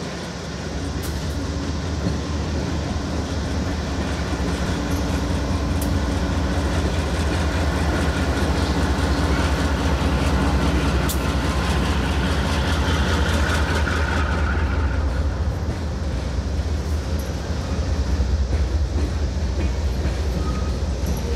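Norfolk Southern diesel locomotive passing close by with a deep, steady rumble. A whine rides over it and dies away about fifteen seconds in, leaving the rumble of loaded tank cars rolling past.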